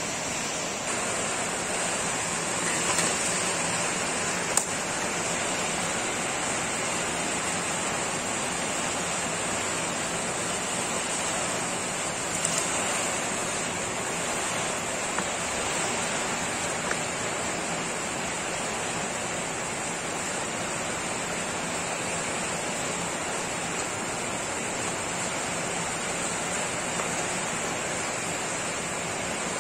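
Sharp EC-8305 vacuum cleaner running steadily: an even rushing of motor and airflow with a strong high hiss. A few brief clicks sound over it, about four seconds in and again around twelve seconds.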